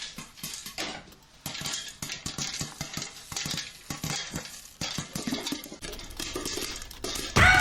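Rapid, irregular clattering and clinking of small hard objects being handled, many small knocks one after another. Near the end comes a loud, short sound that falls in pitch.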